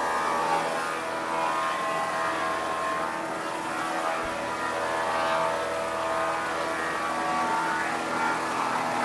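Grizzly G5851 24-inch 5 HP thickness planer running on freshly replaced sharp blades while feeding a board through. It holds a steady whine over the hiss of the cut, and the chips blow out of the chute.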